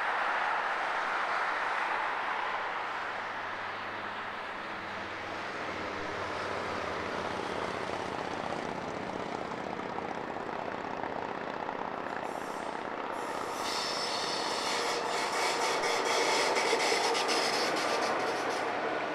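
A DB class 225 diesel-hydraulic locomotive hauling a train of towed locomotives runs past, its engine a steady drone under the hiss of road traffic. About two-thirds in, a brighter hiss with many small clicks grows louder as the train goes by.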